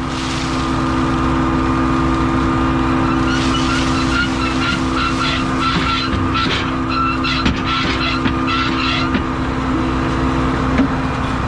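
Combine running steadily, heard from inside the cab, while the rock trap is dumped. From about three seconds in to about nine seconds in, a rapid electronic beep repeats a few times a second over it, and a few light clicks follow.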